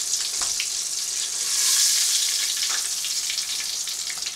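Coated fish pieces frying in hot oil in a stainless pot: a steady sizzle that swells about two seconds in, with a few faint clicks of a metal utensil.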